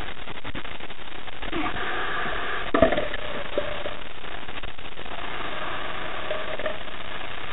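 Steady hiss with a short cluster of sharp knocks about three seconds in and one more soon after, as a dentex is hauled aboard and lands in the kayak's plastic well.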